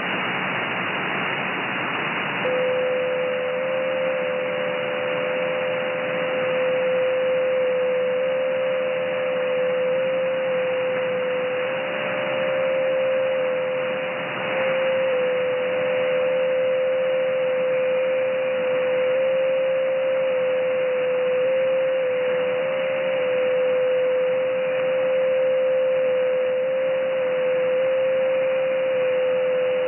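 Shortwave receiver in upper sideband on the 30 m amateur band: a hiss of band noise, then about two and a half seconds in, JT9 digital-mode signals come on as a steady whistle-like tone that steps slightly in pitch, with a fainter second tone just above it.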